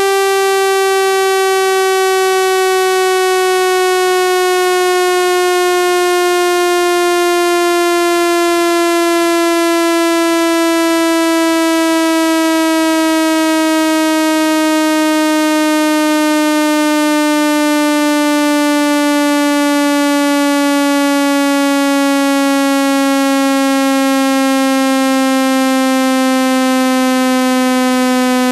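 A single buzzy synthesized tone, loud and steady, slowly gliding down in pitch. It is a speaker-cleaning tone, played at full volume to vibrate water out of a phone speaker.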